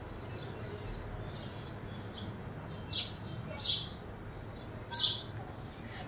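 Sparrows and an Indian parrot chirping while feeding, with three loud, short, downward-sweeping calls about three, three and a half and five seconds in, over fainter chirps and a steady low background noise.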